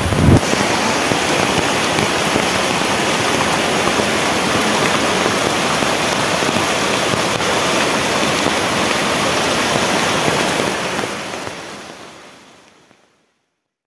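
Floodwater rushing and splashing in a steady, dense wash of water noise that fades out over the last few seconds.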